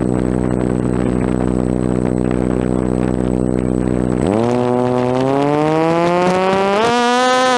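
DJI F330 quadcopter's electric motors and propellers spinning at a steady low idle with a hum. About four seconds in the pitch jumps up and keeps rising as the throttle is opened for takeoff, with another step up near the end.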